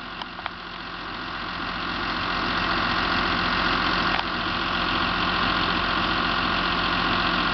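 Caterpillar crawler bulldozer's diesel engine running, growing louder over the first couple of seconds as the machine comes up close, then holding steady.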